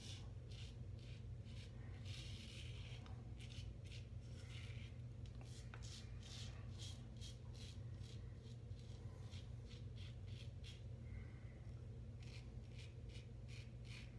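Feather AS-D2 stainless safety razor scraping through lathered stubble across the grain: short, quick, scratchy strokes in runs with brief pauses. A steady low hum runs underneath.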